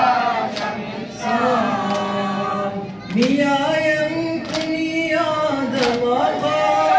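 Men's voices singing a Persian-language noha, a Muharram mourning lament, in long wavering held notes. A sharp slap sounds about every second and a half, the beat of ritual chest-beating (matam).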